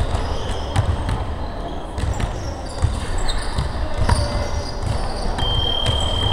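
A basketball bouncing on a hardwood gym floor, with dull thuds about once a second, and sneakers squeaking on the court. There is a longer high squeak near the end.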